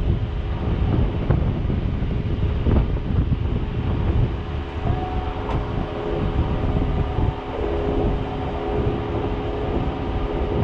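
Jeep engine running with a steady hum while the vehicle moves slowly over rough desert ground, with low rumble and a few short knocks from the rocky track.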